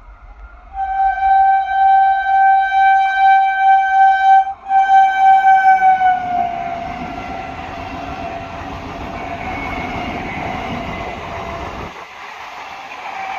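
Indian train's horn blowing a long single-pitched blast, briefly broken about two thirds of the way through, its pitch dropping slightly as the train comes by. The train then runs past with steady rail rumble and wheel noise.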